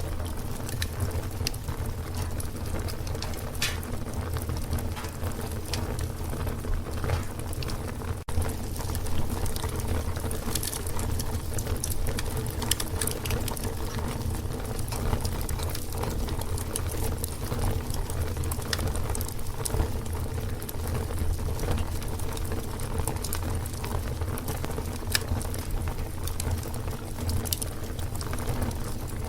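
A fire burning, its flames giving a steady low rumble under frequent sharp crackles and pops. The sound dips briefly about eight seconds in.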